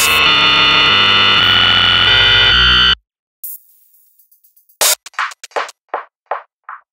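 Electronic music with synthesizer and drum machine that cuts off abruptly about three seconds in. After a short silence, a single sharp hit is followed by short blips repeating about three times a second and gradually fading.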